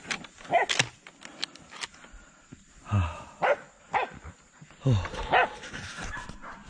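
Hunting dogs barking in short, irregular barks, about eight of them, with faint clicks from the brush early on.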